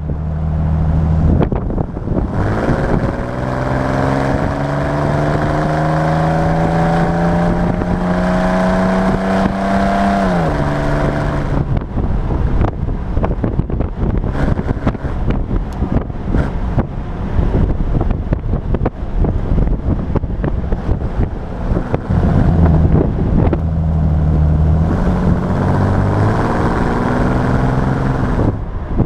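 Hot rod's 4.3-litre V6 with dual exhaust, heard inside the cabin, accelerating: the engine note climbs steadily for about eight seconds, then drops sharply. It then runs along under wind and road noise, and climbs again near the end.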